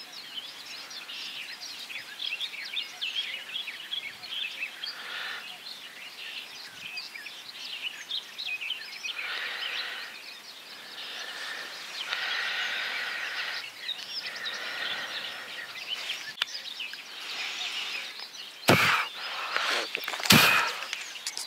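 Small birds chirping over a steady outdoor background hiss, with two sharp knocks near the end.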